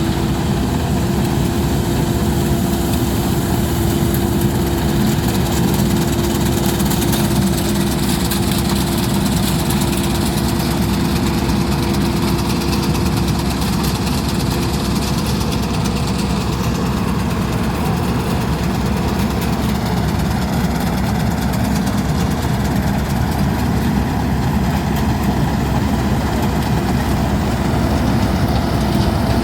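Laverda Fiatagri 3790 combine harvester running steadily, an even engine drone with a constant whine over it.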